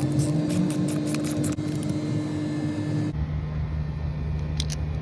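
Ratchet clicking in quick, even strokes while the spark plug is worked loose, over a steady low hum. The clicks stop about a second and a half in.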